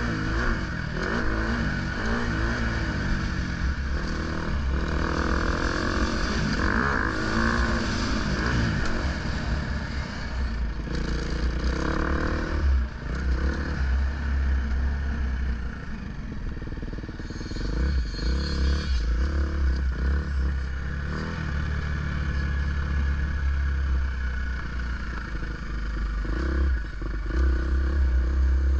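Dirt bike engine running under way, its revs rising and falling, with a heavy low rumble of wind on the microphone and scattered knocks and clatter from the bumpy track.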